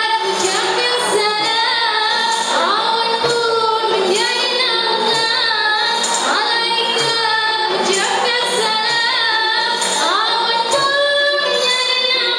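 A group of women singing a qasidah, accompanied by rebana frame drums beating a steady rhythm.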